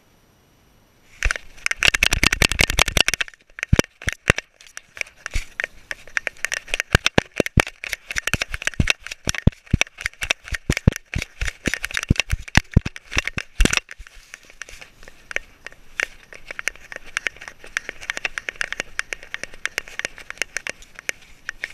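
Handling noise from a GoPro Hero 3+ Black in its housing, strapped to a miniature schnauzer's collar. It starts with a couple of seconds of dense rubbing rumble, then a long run of sharp, irregular clicks and knocks as the dog moves about. It eases to a softer crackling rustle for the last several seconds.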